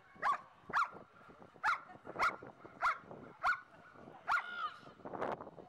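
German Shepherd dog barking steadily at the helper, about eight loud, sharp barks at an even pace.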